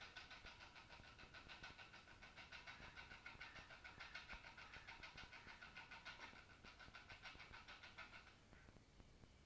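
Faint whir of the gesture-controlled rover's small geared DC drive motors running, with a rapid, even ticking of about six a second that stops near the end.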